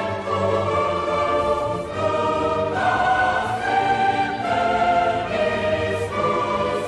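Background music of choral voices singing long held notes.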